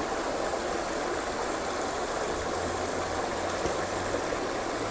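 Stream water running in a steady, even rush.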